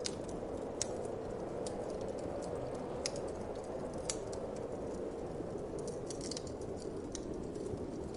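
Wood fire crackling, with sharp irregular pops and a few louder snaps, over a steady whoosh of wind.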